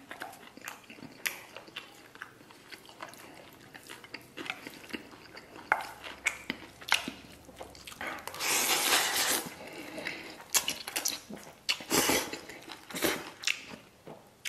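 A person eating rice topped with braised pork belly and sauerkraut from a stainless steel bowl with chopsticks. Chopsticks click and scrape against the steel bowl, with chewing. About eight seconds in there is a loud noisy stretch of a second or more as food is shovelled from the bowl's rim into the mouth.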